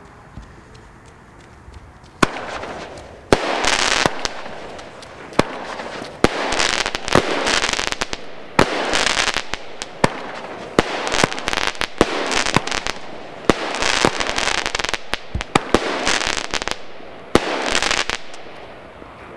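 Phönix (Keller) Hermes ten-shot firework battery firing its shots one after another. Each shot is a sharp bang followed by about a second of rushing burst noise. The shots start about two seconds in and stop shortly before the end.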